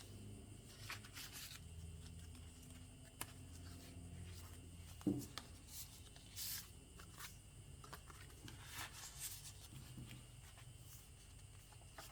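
Faint rustling and rubbing of paper as the pages and inserts of a handmade junk journal are turned and handled, with a soft knock about five seconds in.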